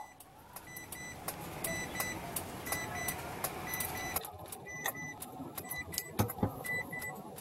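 A dog licking and eating cream cheese from a cup, giving irregular small wet clicks. Against it, a high electronic beep sounds in pairs about once a second, and two low thumps come near the end.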